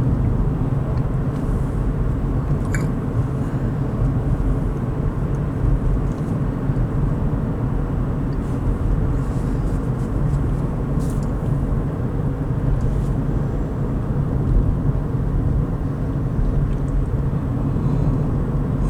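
Steady low rumble of road and drivetrain noise inside the cabin of a 2013 Ford Fusion Hybrid being driven.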